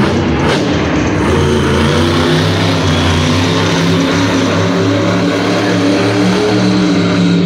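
Monster truck's supercharged V8 running loud and revving as the truck drives across the arena floor, its pitch stepping up and down with the throttle.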